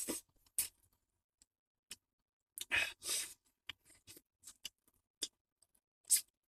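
Faint, scattered small clicks and scrapes of a person eating, with a longer scraping or rustling noise about three seconds in.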